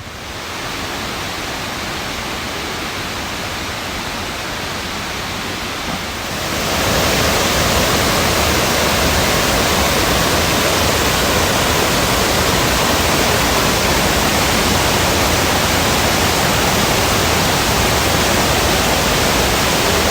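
Steady rush of falling water from a waterfall. It grows louder about six and a half seconds in, then holds even.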